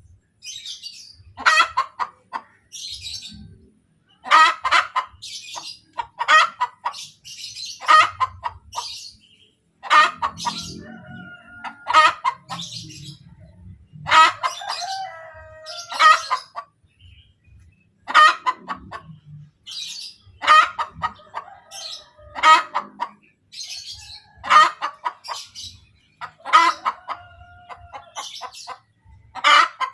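Hen cackling after laying an egg, the egg song: a loud call repeated about every two seconds, with fainter, higher notes between the calls.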